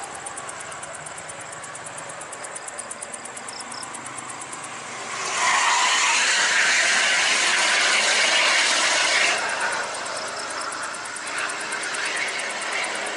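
Toll-road traffic passing at speed: a steady hiss of tyres and engines, with a loud even whooshing rush from about five seconds in that cuts off suddenly about four seconds later.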